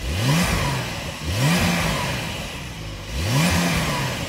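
Porsche 992 911 flat-six on its factory exhaust, revved three times, each rev rising and falling in pitch. It has a muted stock-exhaust note that sounds pretty much like a Hoover.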